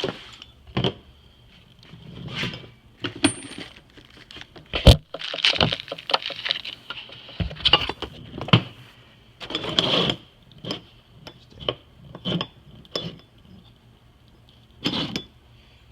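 Small metal parts, the old and new injector cups and the pulling tool, clinking and tapping as they are picked up and handled, with one sharp knock about five seconds in.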